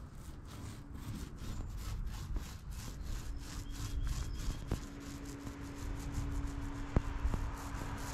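Small foam paint roller run quickly back and forth on the wooden deck of a kit-built kayak, laying on wet paint with a rhythmic rubbing, about four strokes a second, and a couple of light knocks.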